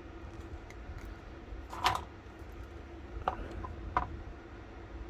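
Pliers and a steel holding tool being handled, giving a few sharp metal clicks: the loudest about two seconds in, two lighter ones roughly a second and a half and two seconds later, over a steady low hum.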